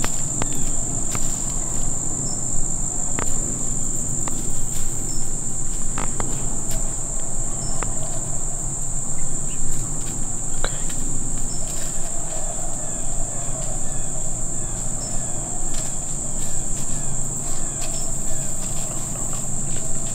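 Insect chorus: a steady, high-pitched trill that does not let up, with a fainter higher chirp repeating about once a second and scattered light clicks and rustles.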